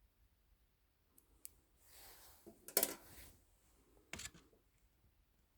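A few sharp metallic clicks and a short scraping rustle as a boring head is adjusted by hand, with the machine stopped. The loudest click comes a little under halfway through, another about a second later.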